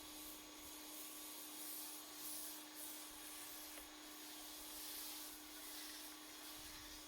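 Faint hiss of a foam cannon spraying from a Ryobi 1900 PSI electric pressure washer, swelling and fading as the spray moves, over the pump motor's steady hum.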